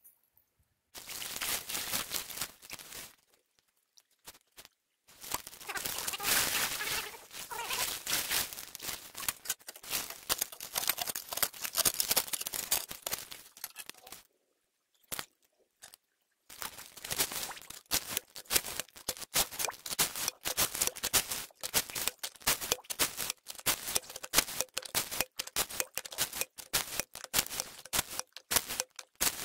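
Gravel and small rocks crunching and rattling as a PVC hand dredge and bare hands work material off the creek bedrock, in dense crackling runs broken by two short silent pauses.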